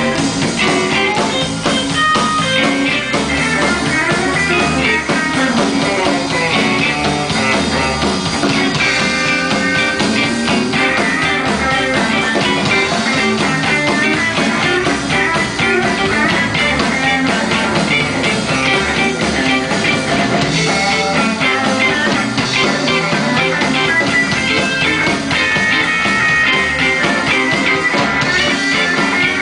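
Electric blues band playing live, an instrumental passage with a Stratocaster-style electric guitar over a drum kit, steady and loud.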